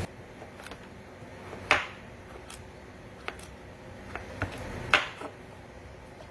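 A few sharp knocks and clinks of kitchen utensils and dishes being handled, two of them louder, about two seconds and five seconds in, with fainter ticks between.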